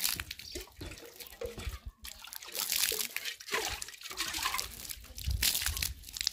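Water splashing onto a concrete step as a stainless steel cup is rinsed and emptied, in uneven pours and splashes.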